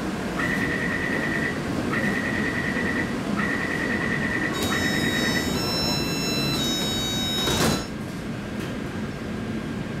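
Door-closing warning on a Taipei Metro C381 train: four runs of rapid high-pitched beeping. Then a few seconds of higher whining tones as the sliding doors close, ending in a brief clunk about seven and a half seconds in. After that the car settles to a steady low hum.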